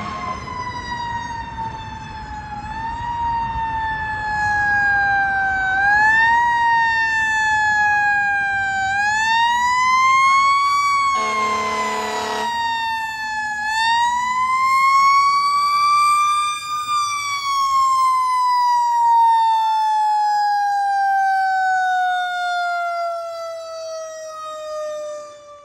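Fire engine siren wailing, rising and falling in pitch several times, with one horn blast about eleven seconds in. The siren then winds down in one long, slowly falling tone that fades near the end as the engine pulls up.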